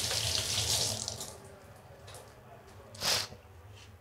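Water running from a kitchen tap, shut off about a second in, followed by quiet and one short burst of hiss about three seconds in.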